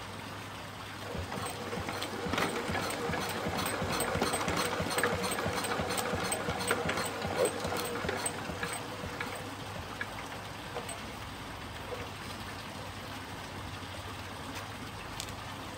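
1945 Lister D tank-cooled single-cylinder stationary engine running slowly with a regular clicking, about three clicks a second, after sitting unrun for over two years. The sound is louder through the first several seconds and dies down about ten seconds in.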